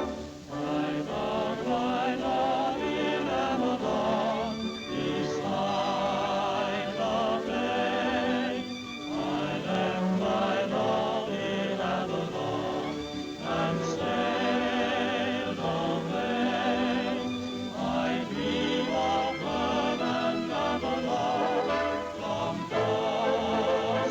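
Orchestral film music with a choir singing in wavering voices, in phrases with short breaks about every four seconds.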